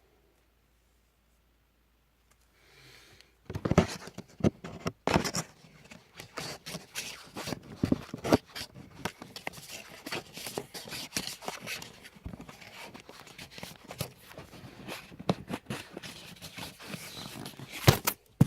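Hands handling box-set packaging and disc cases: irregular clicks, knocks and scraping. These begin after about three seconds of silence, with one sharp knock near the end.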